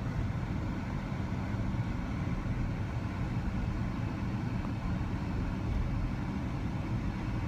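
Steady engine and road rumble inside a moving vehicle's cabin.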